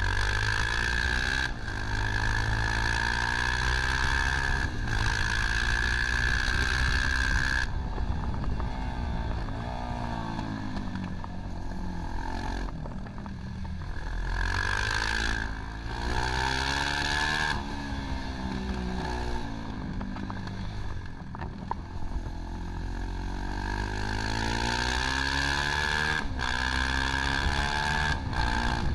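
Onboard sound of a motorcycle at racing speed: the engine revs rise and fall repeatedly, breaking off sharply at each gear change, over steady wind rush.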